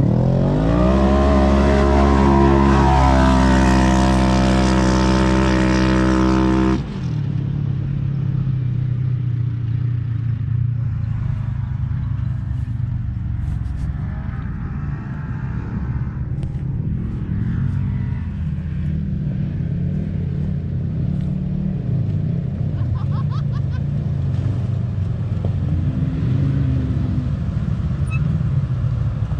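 Side-by-side UTV engines launching at full throttle: loud, with the engine pitch climbing over the first few seconds and then holding high until it cuts off sharply about seven seconds in. After that the engines run lower, idling with uneven revs rising and falling.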